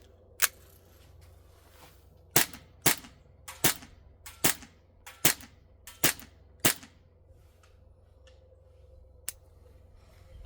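Novritch TP22 gas blowback airsoft pistol firing eight single shots, each a sharp crack: one shot, a pause of about two seconds, then seven more in a steady string, a bit more than one a second. A faint click follows near the end.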